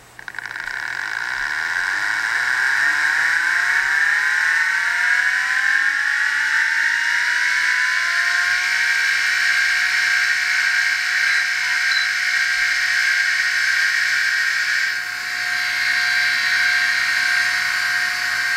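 Four MiniScribe 3425 hard drives with their covers off spinning up together: a whir that starts suddenly, with several whining tones rising in pitch over the first eight seconds or so, then settling into a steady high whine as the platters reach speed.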